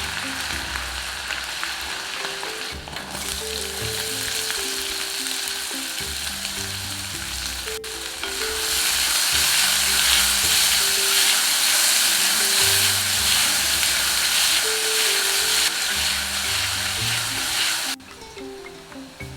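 Food sizzling as it fries in a pan, with occasional stirring; the sizzle grows louder about eight seconds in and drops off sharply near the end. Soft background music with low, held notes plays underneath.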